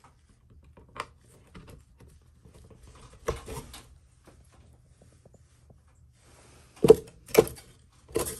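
Knocks and rattles from a ceiling bathroom exhaust fan's grille and housing being handled: a light click about a second in, a short rattle around three seconds, then three louder knocks near the end.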